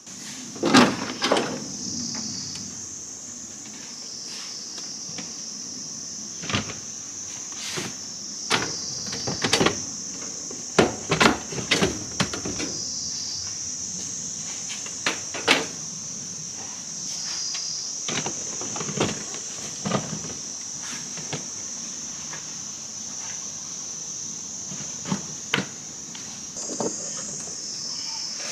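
Steady high-pitched chorus of insects, with many short knocks and clacks scattered through it.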